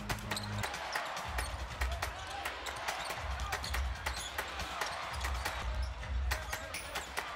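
Basketball dribbled and bouncing on a hardwood court in an arena, with sharp knocks throughout, over background music with a recurring low bass pulse.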